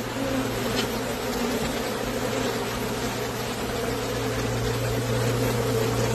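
A mass of honeybees buzzing steadily from a large, crowded nest, over a constant low hum.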